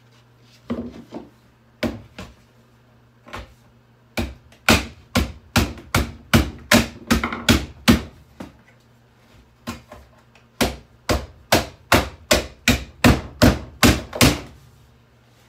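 Hammer blows on a boombox: a few scattered strikes, then two fast runs of about three blows a second with a short pause between them.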